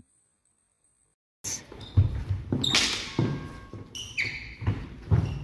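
Steel longswords clashing several times, some strikes leaving a short metallic ring, mixed with the thud of footsteps on a wooden sports-hall floor, echoing in the large hall. The sound starts suddenly about a second and a half in, after silence.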